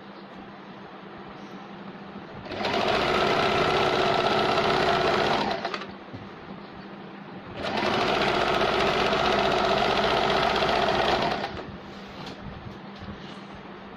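Sewing machine stitching a zigzag pico (rolled) hem along a saree edge with a rolled-hem foot. It runs in two spells of about three seconds each, stopping briefly between them.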